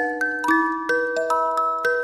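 Background music of struck, bell-like mallet notes, about three a second, each ringing on under the next.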